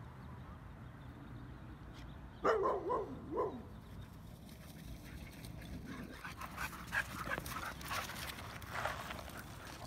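Dogs at play, giving a quick cluster of three or four short yelping barks about two and a half seconds in, followed by a run of quick scuffling clicks.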